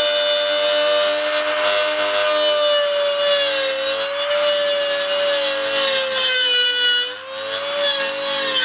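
Dremel rotary tool with a small cut-off disc cutting through a thin web on a BMW K100's aluminium fuel tank: a steady motor whine over a hissing grind, its pitch wavering slightly lower at times, with a brief dip in loudness about seven seconds in.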